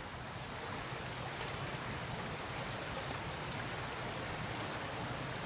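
Floodwater of a swollen river rushing past in a steady, even roar, the river running about 6 feet above its normal level.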